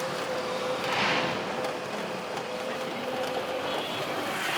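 Electric rickshaw loader running uphill under a heavy load of about ten passengers: a steady, even motor whine over road noise, with a brief swell of hiss about a second in.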